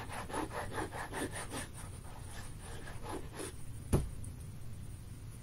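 The tip of a liquid glue bottle rubbed back and forth over cardstock to spread glue, a run of short scratchy strokes about four a second with a brief pause. About four seconds in comes one sharp knock as the bottle is set down on the desk.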